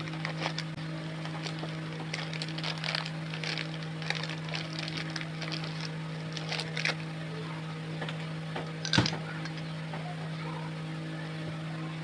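Small metal parts clicking and scraping during hand assembly of a starter motor's bendix drive, with one sharp knock about nine seconds in, over a steady electrical hum.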